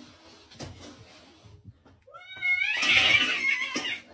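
A cat gives one drawn-out, wavering yowl, starting about halfway through and ending just before the end, as it squares up to its own reflection in a mirror. The first half holds only a few faint taps.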